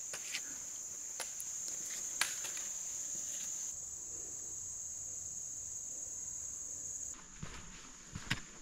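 High, steady drone of insects throughout, with sharp taps of footsteps and trekking poles on stone steps in the first few seconds and duller footsteps on a dirt trail near the end.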